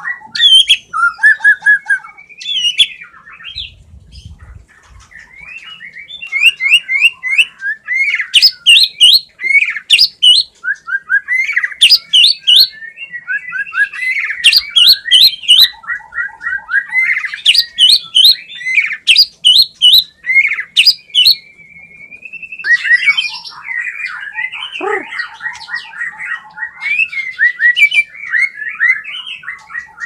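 White-rumped shama singing a loud, varied song of fast rattling trills, quick repeated notes and sharp whistled phrases, the mimicry-packed 'full isian' song of a contest bird.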